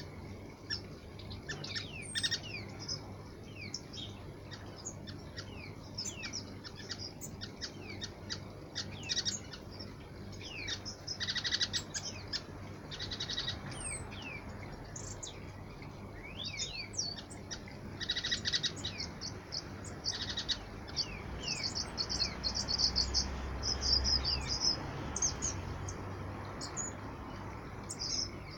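Small flock of waxbills calling: many short, high chirps and downward-sliding tweets, with repeated bursts of rapid chattering notes.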